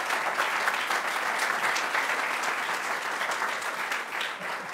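Audience applauding, a dense steady clapping that thins out near the end.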